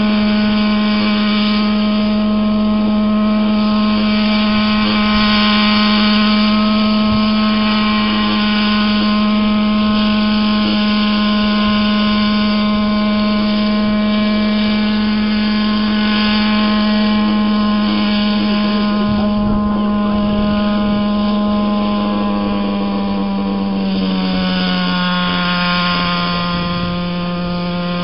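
Radio-controlled scale UH-1 Huey model helicopter hovering low, its engine and rotors giving a loud, steady whine. The pitch drops a little about 24 seconds in and then holds.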